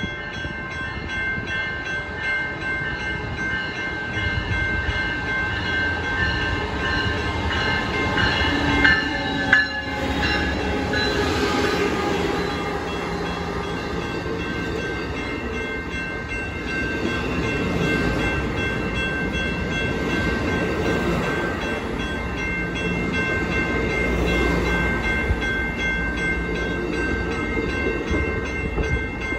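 Grade-crossing warning bells ringing steadily while an Amtrak Pacific Surfliner passenger train of bilevel cars rolls through the crossing, its wheels rumbling on the rails.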